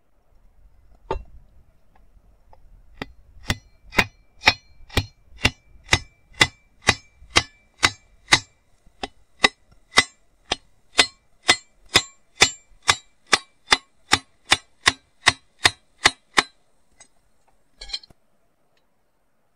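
Hammer blows on a steel punch held against the metal collar of a wooden pharsa handle: steady, ringing metallic clangs about two a second for some thirteen seconds. A scrape and a single knock come before the strikes, and a short clatter comes near the end.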